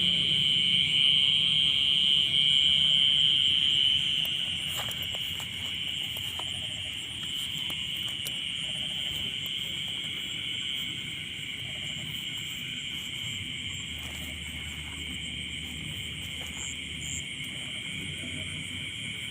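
Night insect chorus in a rice field: a continuous high-pitched trilling drone, louder for the first four seconds and then a little softer.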